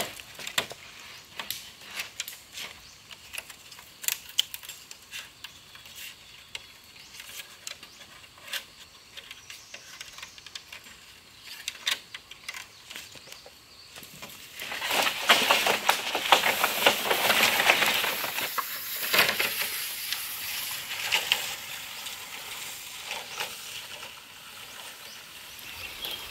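A green strip being wrapped and knotted around a bundle of green bamboo poles: light rustling and scattered clicks of the strip and poles. A louder stretch of scratchy rustling comes midway, then it settles to a soft hiss.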